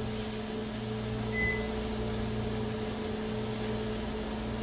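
Microwave oven running with a steady hum, with one short high beep about a second and a half in.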